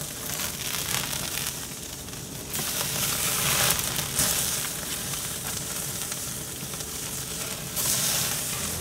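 Tomahawk steaks sizzling hard on the cast iron grates of a kamado grill at about 550 degrees as they are seared. The sizzle grows louder about two and a half seconds in, as dripping fat flares up into flames.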